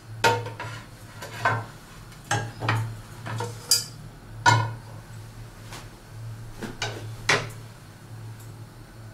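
Non-stick kadai being lifted, set down and shifted on a gas stove's metal pan support, with a series of clunks and clinks of pots and utensils, about nine knocks in all, over a low steady hum.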